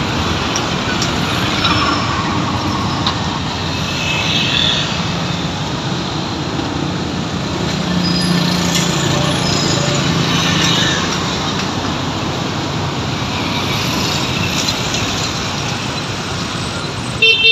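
Busy street-market ambience: steady traffic noise of passing vehicles with indistinct background voices, and a short horn beep near the end.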